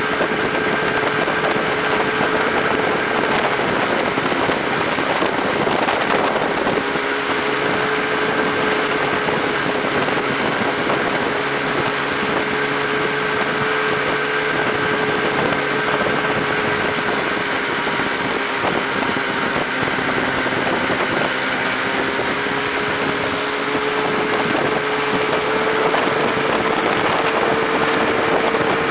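600cc snowmobile engine of a mini buggy running at a fairly steady speed, its pitch dipping slightly about a quarter of the way in and climbing gently near the end.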